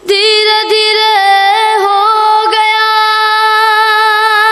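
A high voice holding one long sung note in a manqabat recitation. It comes in suddenly, stays almost level with a few small steps in pitch, and slides down near its end.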